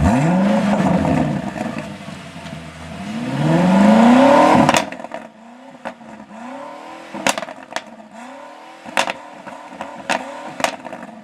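2018 BMW M5 F90's twin-turbo V8 revving: a rise and fall, then a louder climbing rev that cuts off sharply about five seconds in. Fainter revs follow, with several sharp exhaust cracks and pops.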